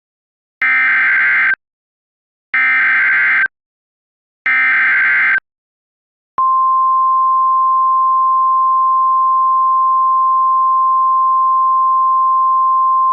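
Emergency Alert System SAME header: three one-second bursts of screechy two-pitch digital data. About six seconds in, the steady single-pitch 1050 Hz NOAA Weather Radio attention tone starts; it signals a National Weather Service tornado warning.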